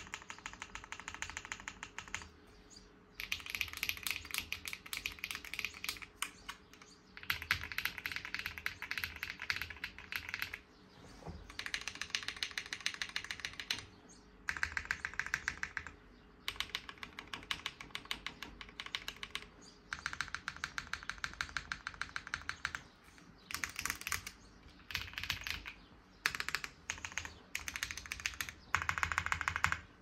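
Alice-layout mechanical keyboards being typed on: runs of rapid keystroke clicks lasting a few seconds each, broken by short pauses about every three to four seconds.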